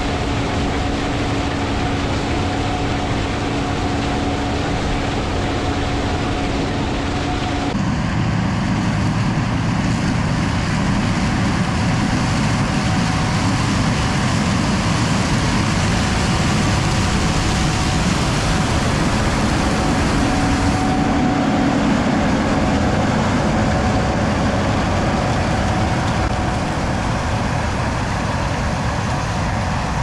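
Gleaner combine running steadily in the field while harvesting corn, its engine and machinery making a continuous loud drone. The sound changes abruptly about 8 seconds in and again about 21 seconds in.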